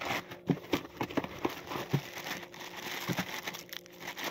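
Clear plastic packaging bags crinkling and rustling in the hands, with irregular small crackles and taps as the bagged parts shift.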